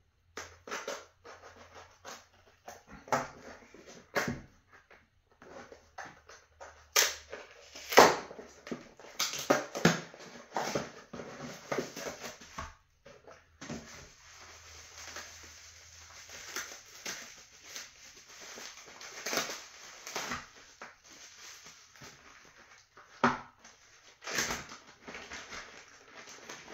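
Cardboard mailing box being opened and bubble wrap and plastic bag packaging handled: scattered crinkles, tears and rustles, with a longer stretch of steady rustling about halfway through.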